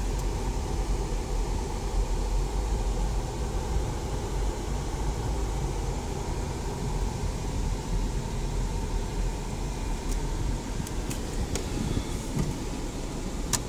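Inside the cabin of a 2022 Chevrolet Captiva driving slowly in city traffic: a steady low engine and road rumble, with a few light clicks near the end.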